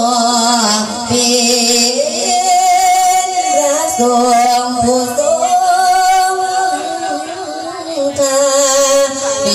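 Sung verse sermon (thet klon): a monk's voice chanting melodic verse over a PA system, with long wavering held notes and melodic turns.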